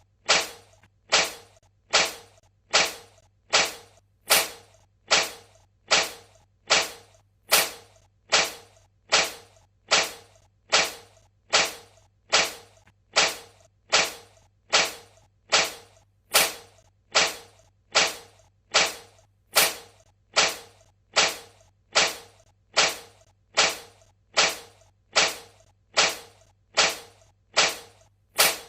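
A cat sneezing over and over, one short sharp sneeze a little more than once a second at a very even pace.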